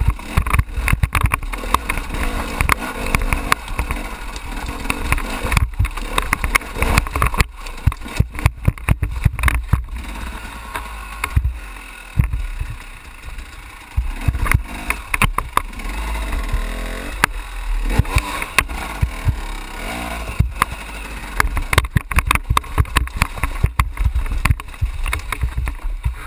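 Enduro motorcycle engine running and revving unevenly in low gear as the bike crawls over loose rock, with frequent sharp knocks and clatter from the wheels and chassis striking stones.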